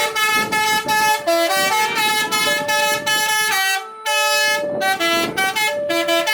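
Indonesian bus "telolet" horn: a multi-trumpet air horn playing a quick tune of short notes, several pitches sounding together, with a brief break about four seconds in.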